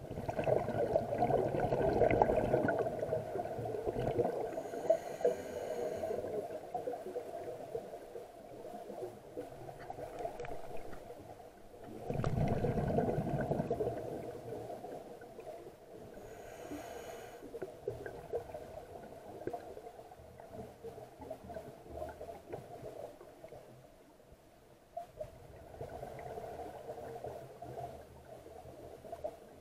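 Scuba diver breathing through a regulator underwater: a rush of bubbling exhaled air, then a shorter hissing inhale, twice over.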